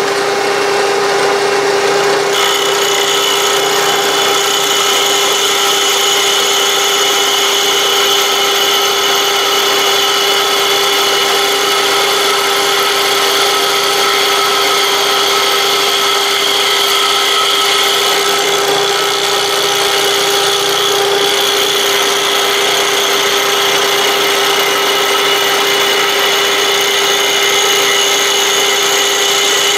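Milling machine running with its end mill taking a facing cut across an aluminium casting: a steady motor and spindle hum with the cutting noise on top. The cut begins about two seconds in, adding a higher steady tone that holds to the end.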